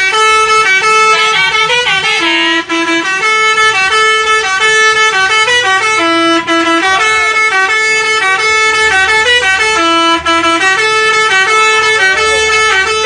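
Indonesian bus 'telolet' horn, a multi-tone musical horn, playing a quick tune that steps back and forth between a few notes and repeats without a break.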